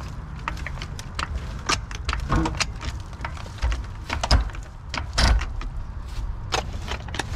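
Hydraulic floor jack being worked under a mud-stuck boat trailer: a run of metal clicks and knocks with a few heavier thumps, over a steady low rumble.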